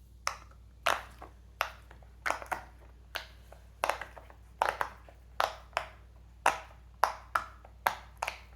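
Silicone Pop-It fidget toys having their bubbles pressed through one by one: a run of sharp pops, about two a second with uneven spacing.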